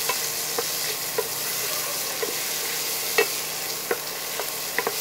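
Chopped onions, green chillies, garlic and ginger sizzling in butter in a stainless steel pan while being sautéed soft, with a wooden spatula stirring and knocking against the pan about once a second.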